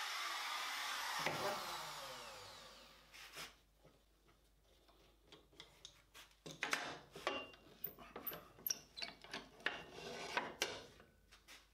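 Trim router with an 1/8 inch cutter winding down after being switched off, its whine falling away over about three seconds. After a short pause, a string of light clicks and knocks as the router is handled and the clamp on the hinge jig is worked loose.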